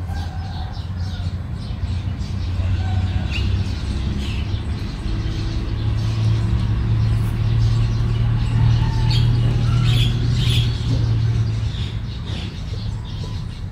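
A steady low rumble that swells through the middle and eases off near the end, with faint short bird chirps over it.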